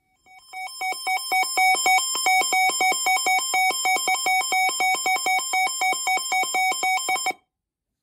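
Electronic alert tone warbling rapidly back and forth between two pitches for about seven seconds, then cutting off abruptly.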